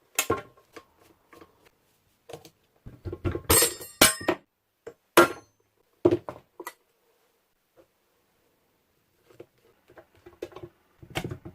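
Metal tools and parts of a KitchenAid stand mixer clinking and knocking as it is taken apart, in irregular bursts with gaps between them. Between about three and a half and four seconds in come two louder strikes that ring like metal.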